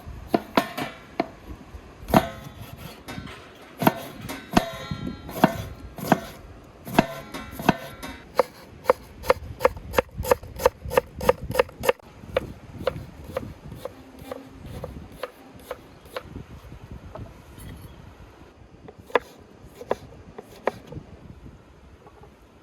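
Knife chopping on a cutting board: a long series of sharp strokes, irregular at first, then a fast even run of about three a second, thinning out with a short pause and a few last chops near the end.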